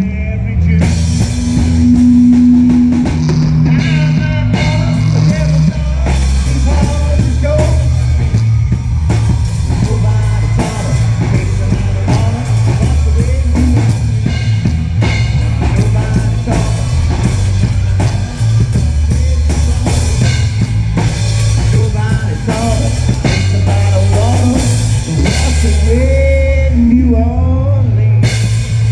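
Loud rock band playing an instrumental stretch of the song, with a drum kit keeping a steady beat under heavy bass notes and a lead part bending notes.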